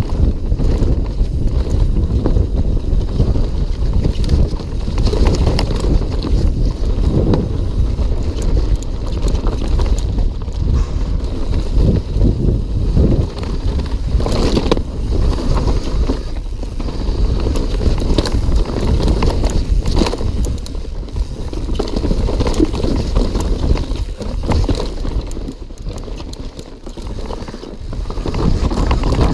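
Mountain bike descending a rocky dirt trail at speed: tyres rumbling over dirt and rock under heavy wind noise on the microphone, with several sharp knocks from the bike about halfway through.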